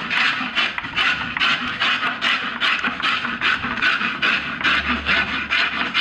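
Hand tools scraping and rasping the outside of wooden djembe shells in quick repeated strokes, about three a second, as the shells are shaped by hand.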